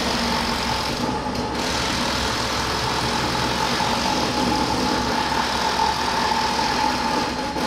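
A machine running steadily, with a constant whine over an even hiss.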